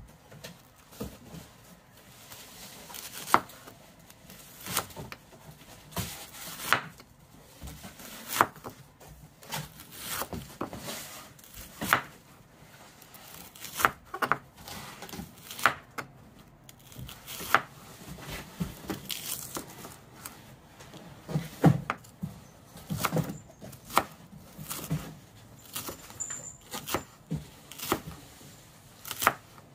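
A kitchen knife slicing myoga ginger on a wooden cutting board: a series of sharp, irregular knocks as the blade meets the board, about one every second or so.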